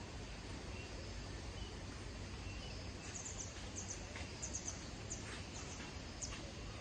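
Rural outdoor ambience: a steady low hum and hiss, with short high-pitched bird chirps from about halfway through.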